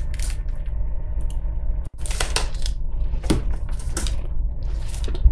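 Rustling and crinkling of a large printed cross-stitch chart sheet being bent and flipped over by hand, in a string of uneven crackles, over a steady low hum.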